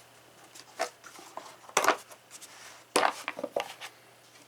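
A handful of sharp clicks and knocks, with some light rubbing, as a boxed set of metal impact sockets and its case are handled.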